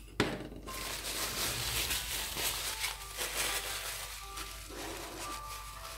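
A paper towel crinkling and rubbing over a palette as leftover oil paint is wiped off, after a sharp tap right at the start.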